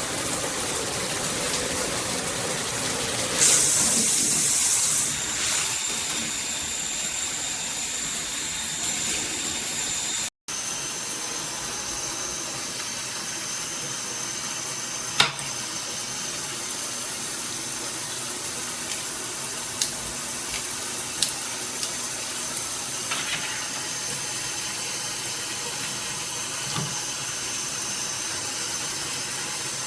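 Water spraying from a shower head, a steady rushing hiss. It gets louder and brighter for a moment about three and a half seconds in, drops out for an instant about ten seconds in, and a single sharp click comes about fifteen seconds in.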